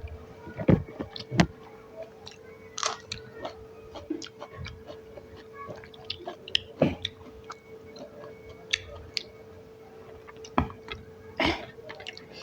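Close-miked chewing and biting of rice and potato-tomato curry: irregular wet mouth clicks and smacks, a few louder than the rest. A faint steady hum runs underneath.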